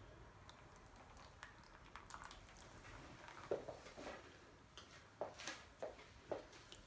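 Faint pouring and dripping of thin, liquidy cold-process soap batter into a loaf mold, with several soft wet plops and ticks in the second half.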